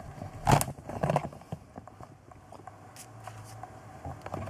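Handling noise at a workbench: a short rustle and knock about half a second in, another about a second in, then a few faint ticks.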